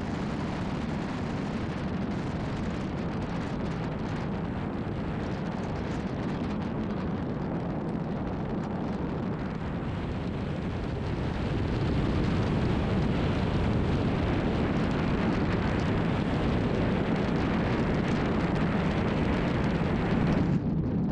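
Steady road and engine noise inside a moving car at speed, a low even rumble that grows a little louder about halfway through.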